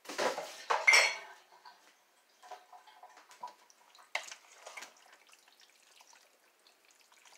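Dishes clattering in the first second and a half, one with a brief ring, then a wooden spoon stirring food in a ceramic slow-cooker crock, scraping and tapping against its sides, with a sharper knock about four seconds in.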